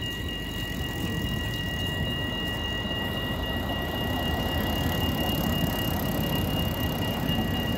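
A Siemens Avenio low-floor tram passing over the rails, its low rumble growing louder over the second half. Two steady high-pitched tones run throughout.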